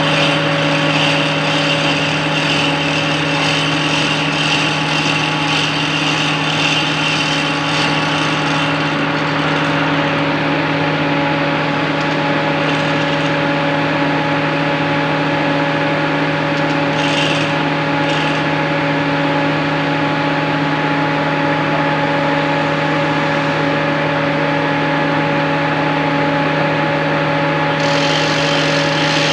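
JWP motor running steadily with a constant hum and a higher hissing whine. The whine drops away about nine seconds in and comes back near the end. The owner judges the sound abnormal.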